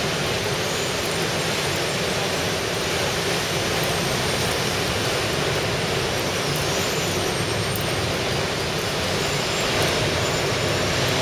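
Ocean surf breaking and churning over rocks: a steady rushing wash of noise that swells a little louder near the end.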